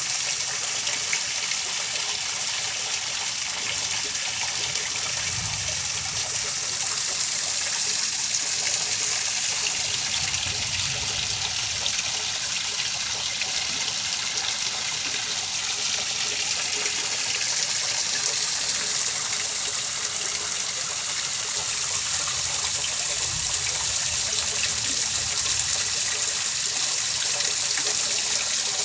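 Steady, unbroken rush of running water, an even hiss heavy in the high end, used as a white-noise sleep sound.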